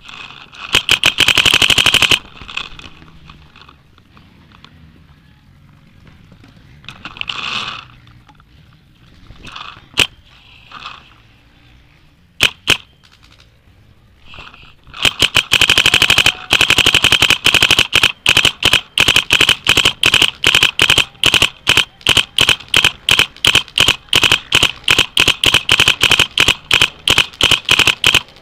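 Dye DM12 paintball marker firing close by: a short rapid burst about a second in, a few single shots, then from about halfway a long string of rapid fire that slows to separate shots about three a second near the end.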